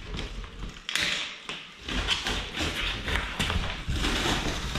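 Cardboard box being handled and opened: flaps scraping and flexing, with rustling and small knocks from the plastic-wrapped flat-pack parts inside. The rustling starts about a second in and carries on through.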